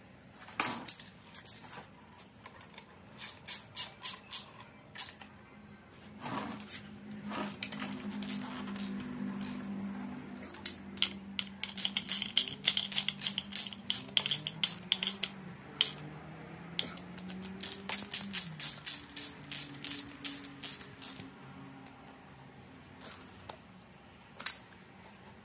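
Hand socket ratchet clicking in runs of quick clicks as bracket bolts are done up, with a low tone sliding up and down underneath from about six seconds in.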